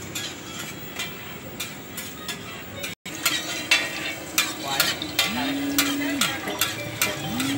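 Martabak telur frying in oil on a wide flat iron pan, sizzling, with sharp clicks and scrapes from two metal spatulas turning it; this starts after a brief dropout about three seconds in. In the second half, a low droning tone twice swells, holds for about a second and fades.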